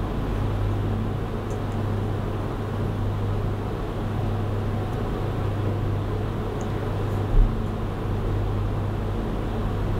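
Steady low hum and hiss of room noise, with a few faint ticks and one soft low thump about seven seconds in.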